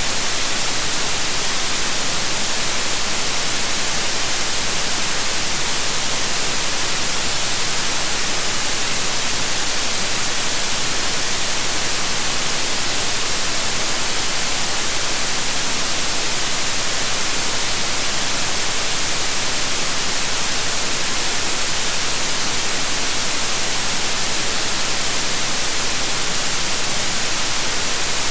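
Synthetic white noise: a steady, unchanging hiss, strongest in the high frequencies.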